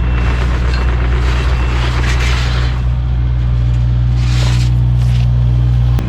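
Kubota U55-4 mini excavator's diesel engine running steadily under work, with two short scraping swishes about two and four seconds in.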